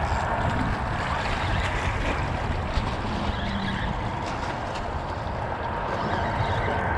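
Wind rumbling on the microphone over the steady wash of small sea waves against shoreline rocks.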